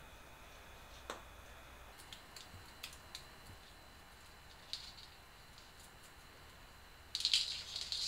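Faint clicks and taps, then a brief crinkly rustle about seven seconds in, from string lights being handled and wound onto an artificial Christmas tree's branches.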